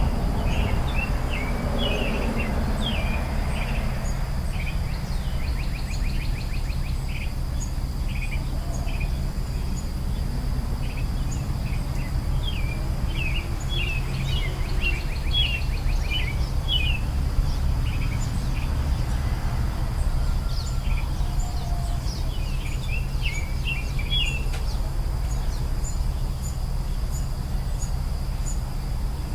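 Wild songbirds chirping in scattered runs of quick high twittering notes, over a steady high insect drone and a constant low rumble of background noise.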